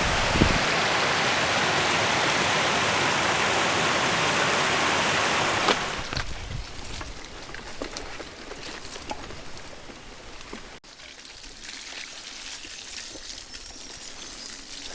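Heavy rain falling: a loud, even hiss that drops suddenly about six seconds in to a softer rain with scattered, distinct drops ticking, broken off again by a sharp cut near eleven seconds.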